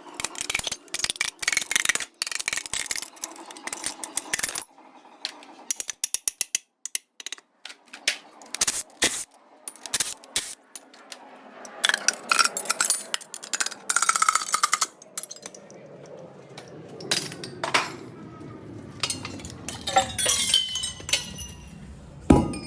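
Metal engine parts and hand tools clinking and clattering during the teardown of a Ford Boss V8, in a run of many sharp knocks, with short metallic rings.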